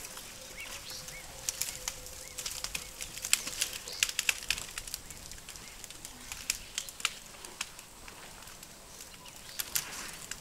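African elephant rubbing its hide against a tree trunk: irregular scraping and crackling of skin on bark.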